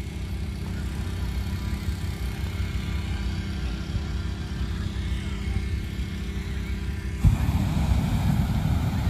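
Steady low background rumble, then about seven seconds in a hot-air balloon's propane burner fires in a loud blast lasting about two seconds.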